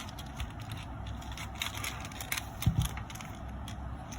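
Handling noise from the portable speaker and its sling strap: scattered light clicks and crackles, with one louder thump a little past the middle.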